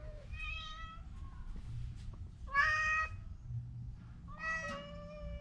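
Domestic cat meowing three times. The second meow is the loudest and the last is drawn out for about a second and a half.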